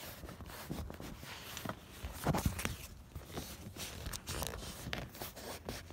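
Irregular light knocks, clicks and rustling from hands working car seat trim and upholstery, with handling noise from the camera. The loudest knocks come a little over two seconds in.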